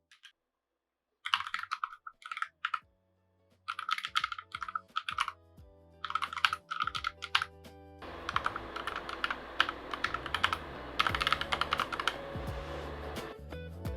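Keystrokes on a Keychron K1 Max low-profile mechanical keyboard with red linear switches. There are three short bursts of typing, then steadier continuous typing from about eight seconds in.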